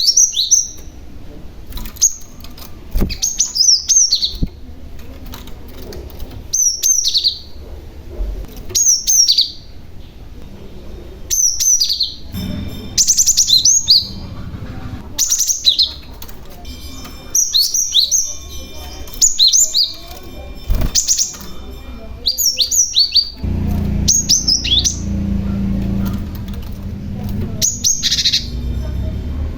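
Young cinereous tit (glatik batu) calling busily: short clusters of quick, falling high chirps every second or two. A low steady hum sets in about three-quarters of the way through, beneath the calls.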